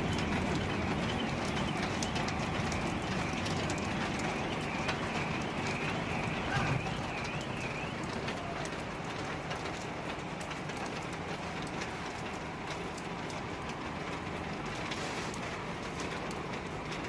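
Steady heavy rain, with many scattered drops ticking close by. Through the first half a bird calls a repeated series of short high chirps.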